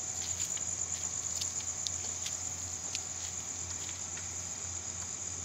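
Crickets chirring in a steady, unbroken high trill, with faint scattered ticks and a low hum underneath.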